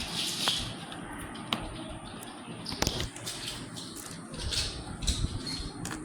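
Plastic toy bricks being handled: scattered sharp clicks and taps, the clearest about one and a half and three seconds in, over soft rustling.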